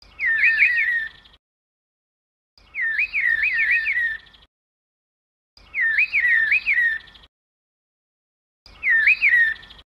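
Bird call, a short phrase of four to five quick notes that each rise and fall, repeated four times with dead silence between: the same recording looped as a sound effect.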